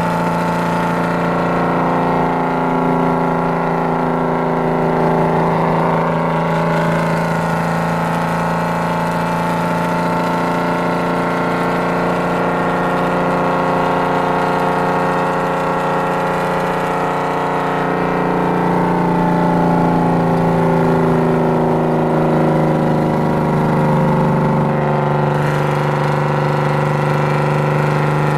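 Detroit Diesel 6-71 two-stroke diesel in a Ford L9000 truck, running steadily under load as it pulls up a grade, heard from inside the cab. The engine note holds mostly steady and shifts slightly in pitch past the middle.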